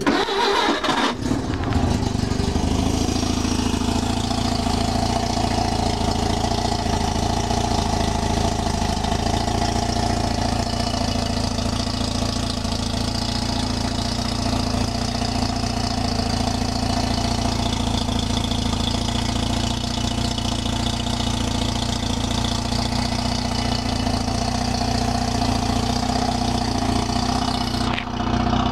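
Mazda 13B rotary engine starting up, catching within about a second and a half, then running at a steady idle. It is running on Megasquirt2 ignition fired from a modified crank angle sensor, with the carburettor still fuelling it.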